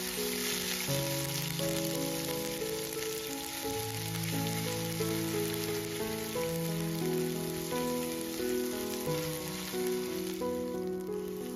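Ginger garlic paste and whole spices sizzling in hot oil in a non-stick pot as they are stirred with a silicone spatula, a steady frying hiss that eases briefly near the end. Background music plays throughout.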